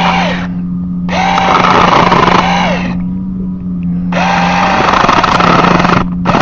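Rivlox 4-inch battery-powered mini chainsaw running in repeated bursts of about two seconds as the trigger is pulled and released, the motor winding up at the start of each burst and down at the end, cutting through dry hardwood. A steady low hum runs underneath.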